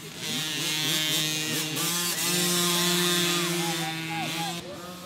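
Several 50cc mini dirt bike engines buzzing: one holds a steady high-revving note while others rev up and down over it. It fades somewhat near the end.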